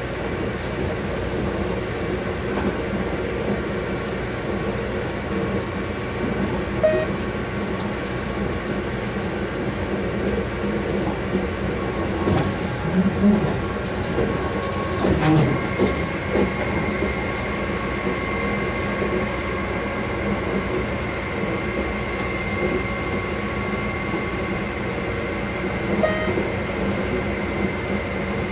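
Cab of an FS E652 electric locomotive under way: a steady running rumble with a few fixed whining tones on top. A higher tone comes in about halfway through. Wheels knock and clatter over rail joints or points a few times, most around the middle.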